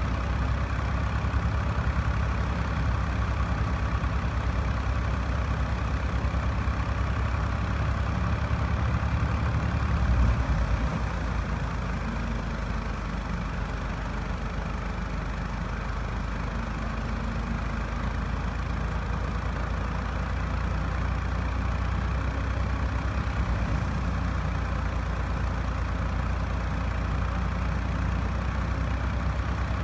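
NH Ghazi tractor's diesel engine running steadily under heavy load, driving a wheat thresher fed with damp wheat, with the thresher running alongside. About ten seconds in the sound swells briefly, then settles a little quieter with a changed low note.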